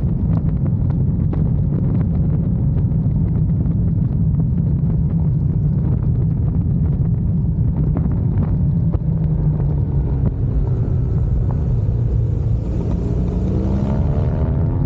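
BMW motorcycle engine running at road speed, heard on board with a heavy low rumble of wind and road. Near the end the engine note rises as the bike accelerates.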